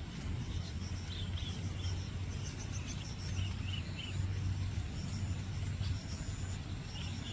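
Outdoor ambience: a steady low hum under a constant hiss of background noise, with short high chirps in small clusters about a second in, around three to four seconds in, and again near the end.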